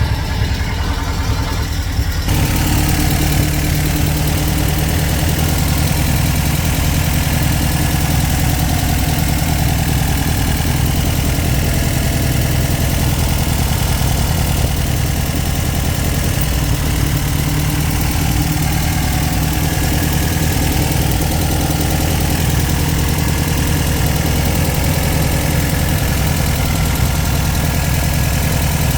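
Air-cooled VW flat-four, a freshly installed 2110cc motor with carburetors still awaiting final tuning, idling steadily. It grows slightly louder and fuller about two seconds in.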